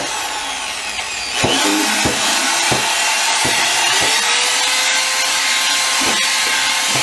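Electric drill with a whisk attachment running steadily with a constant whine, mixing lye solution into oils to make soap batter. A few sharp knocks sound over it.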